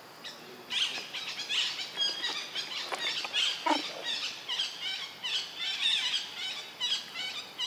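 Many short, high-pitched animal chirps and squeaks come in quick succession, starting about a second in. A single lower call falls in pitch about halfway through.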